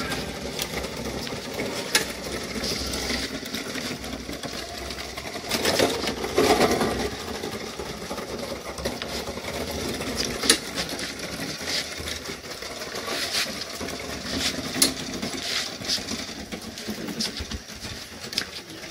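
Wheels of a handmade miniature wooden truck rolling and rattling over rough concrete as it is pulled along, with scattered sharp clicks and knocks. The rattle grows louder for a moment about a third of the way in.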